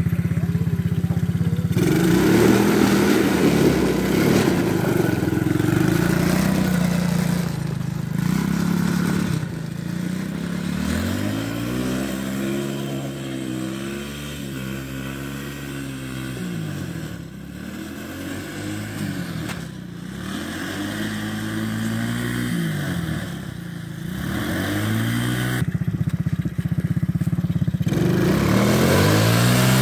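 Small youth ATV (quad bike) engine running steadily, then revving up and down over and over as it rides through snow, quieter for a while in the middle as it moves farther off. The repeated revving goes with the summer tyres slipping on the snow.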